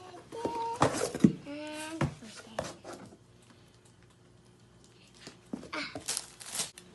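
A young child's brief vocal sounds, mixed with clicks and knocks from handling the gift box and its contents. This is followed by a quiet stretch and a burst of rustling near the end.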